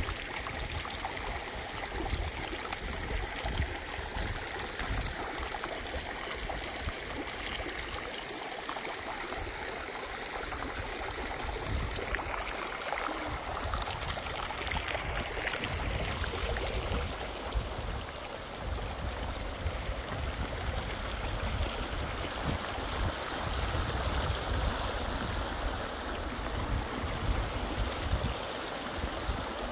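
Water flowing steadily, like a stream or irrigation channel running, with low uneven rumbling underneath.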